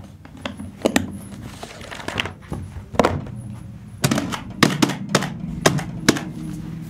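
Kitchen utensils and dishes being handled: a dozen or so irregular sharp knocks and clinks, coming thicker in the second half.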